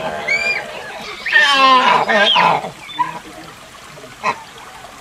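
Proboscis monkey calls: a brief high chirp just after the start, then a louder, wavering call lasting about a second and a half from about a second in. A sharp click near the end.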